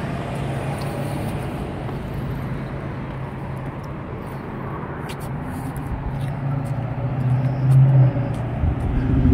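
Steady road-traffic noise with a low engine hum, which swells briefly near the end and then drops away.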